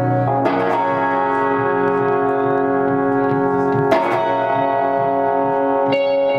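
Alt-rock band music: electric guitar chords held and left ringing, changing twice with a sharp hit at each change, no singing.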